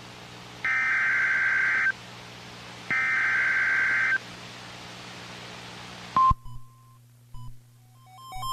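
Emergency Alert System SAME header data bursts over weather radio: two bursts of harsh digital warbling, each a bit over a second long and about a second apart. Radio hiss follows, then a click and a short beep about six seconds in.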